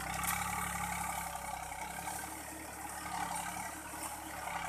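Sonalika tractor's diesel engine running hard under load as the tractor struggles in deep mud with its rear wheels spinning. It picks up sharply at the start and then holds steady.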